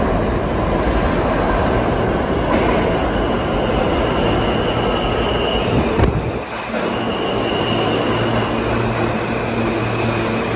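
R160B subway train pulling into an underground station and braking, with loud wheel-and-rail noise and a high whine. About six seconds in there is a sudden knock as the noise drops away, leaving the steady hum of the standing train.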